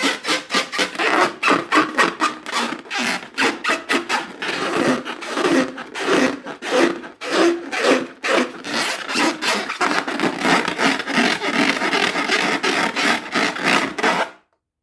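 Rubber balloons being rubbed and squeezed by hand, a rapid rasping, squeaky rubbing of several strokes a second that stops abruptly just before the end.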